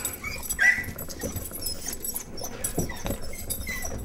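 Beagle whining excitedly in short high notes as it greets its returning owners, with scuffling and thumps from its movement.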